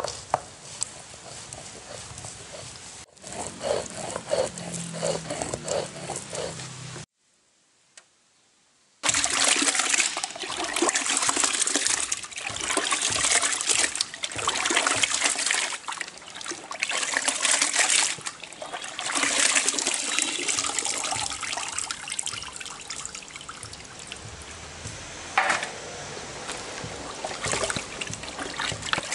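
Pieces of snakehead (murrel) fish being washed by hand in a basin of water: repeated splashing and sloshing. It drops out for about two seconds some seven seconds in, then comes back louder.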